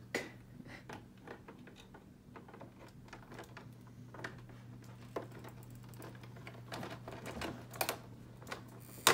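Scissors snipping at the plastic straps in a clear plastic packaging tray, with scattered light clicks and crinkles of the plastic. A faint steady hum runs underneath.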